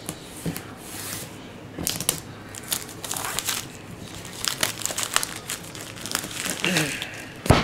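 Plastic shrink-wrap on a cardboard card box crinkling and tearing as it is slit with a knife and pulled loose, in irregular crackles. A single sharp knock near the end.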